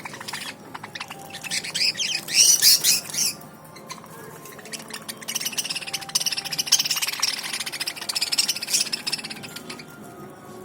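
A flock of budgerigars chattering and chirping: a loud burst of calls about two seconds in, then a longer stretch of busy, steady chatter through the middle.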